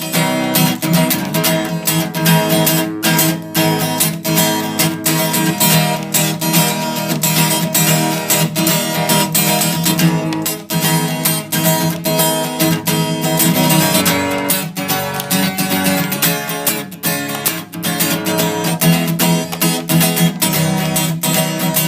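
Background music: a strummed acoustic guitar playing without a break.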